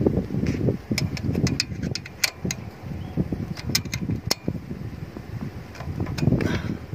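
Hand tools working on a motorcycle's valve adjuster: scattered sharp metallic clicks and taps as the rocker-arm adjuster lock nut is tightened, over a steady low rumble.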